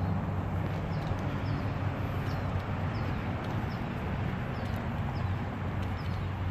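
Footsteps walking on the concrete riverbed over a steady low rumble, with a small bird giving short high chirps over and over, about once a second.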